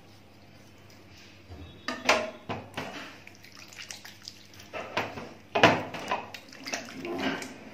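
Wet squelching and splashing of hands working raw poultry liver and gizzards in a wet flour paste on a metal tray, with sharp clicks of a knife and hands against the metal. It starts about two seconds in and goes on in irregular bursts.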